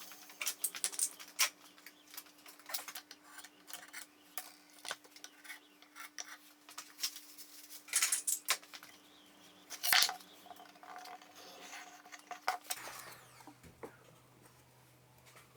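Irregular small clicks, taps and light metallic clatter of hand work with tools and hardware, louder in two brief clusters near the middle, over a faint steady hum that drops to a lower tone near the end.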